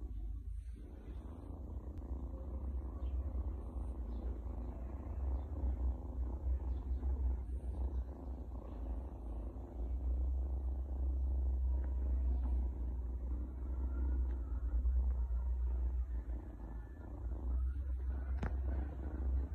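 Tabby kitten purring, a low steady rumble, with a few faint clicks near the end.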